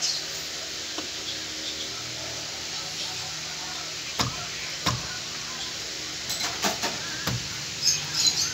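Light knocks and taps on a wooden door frame while it is checked for plumb with a spirit level: two single knocks about four and five seconds in, then a quick cluster of taps near the end, over a steady background hiss.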